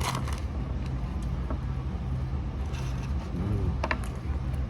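Steady low hum of a car engine idling, with a few short clicks over it.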